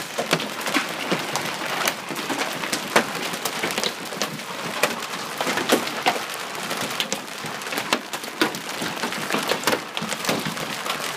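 Large hailstones pelting down: a dense steady hiss with many sharp, irregular clacks as stones strike parked cars and a wooden deck railing.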